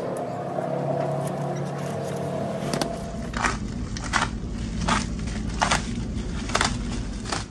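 Plastic stretch wrap on a flight case being slit with a box cutter and pulled off: a run of short, sharp crackling rips about three quarters of a second apart, starting about three seconds in, over a steady low hum.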